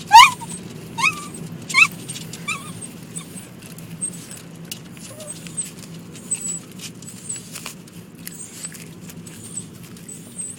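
Dog giving short high-pitched yelping whines, four in the first few seconds, each fainter than the last, over a steady low hum of the car.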